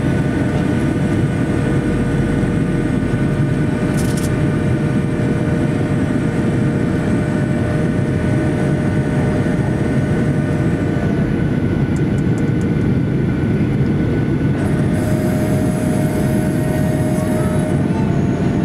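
Jet airliner in flight heard from inside the cabin over the wing: a steady, loud roar of engines and airflow with a constant engine whine running through it.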